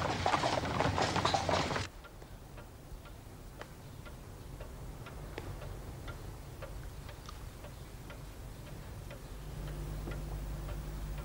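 Horse-drawn carriage rolling along, its hooves and wheels clattering, cuts off suddenly about two seconds in. After that a clock ticks steadily in a quiet room, and a low hum joins near the end.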